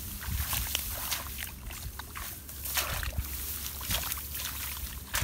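Hands splashing and sloshing in shallow muddy water while groping by hand for catfish. Irregular short splashes come through, mixed with rustling of wet rice stalks.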